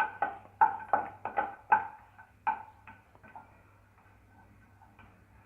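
Irregular sharp clicks and pops from raisins and cashew nuts sautéing in ghee in a pan, coming quickly at first and thinning out after about three seconds.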